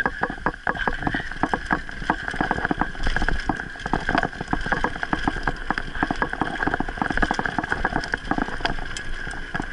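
Mountain bike descending a dry dirt singletrack: tyres running over dirt and gravel, and the bike rattling with rapid, irregular clicks and knocks over a low rumble of wind.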